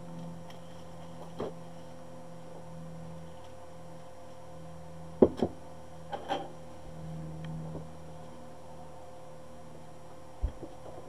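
Steady electrical hum with a few short, sharp clicks: two close together about five seconds in, two more a second later, and one near the end.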